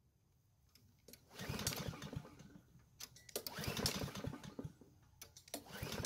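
Honda GCV lawnmower engine pulled over three times on its recoil starter, each pull a short burst of fast cranking pulses. The engine has been primed with gasoline but turns over without firing.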